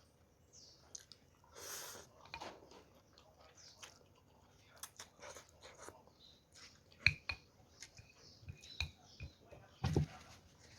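Close-up sounds of a person eating Thai suki soup: chewing with many small wet mouth clicks, a short slurp about two seconds in, and two louder knocks, one past the middle and one near the end.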